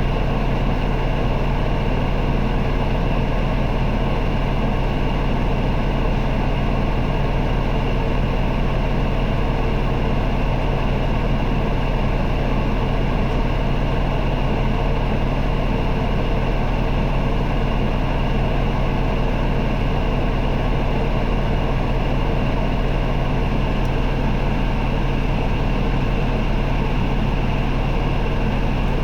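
Isuzu Erga city bus's diesel engine idling steadily, heard from inside the passenger cabin, with a deep drone that holds one pitch throughout.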